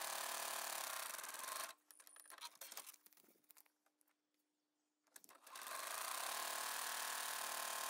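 Electric sewing machine stitching through foundation paper and fabric at a short stitch length. It stops about 1.7 seconds in, a few light clicks follow while the work is turned at needle-down, and it starts stitching again about 2 seconds before the end.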